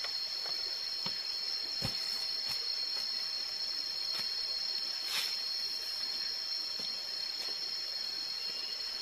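A steady high-pitched drone of tropical forest insects, two constant tones running under everything, with a few crunching footsteps and twig cracks on dry leaf litter scattered through, the sharpest about two seconds in.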